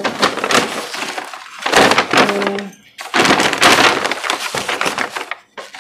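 Large paper takeout bag crinkling and rustling loudly as it is torn open and spread flat, in long stretches of dense crackle with a short pause about three seconds in.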